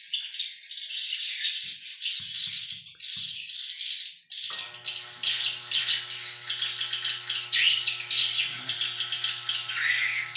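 Dense, fast chirping and rattling swiftlet calls fill the background. About four and a half seconds in, a small geared DC motor starts with a steady hum and keeps running as it drives the automatic entrance door of the swiftlet house.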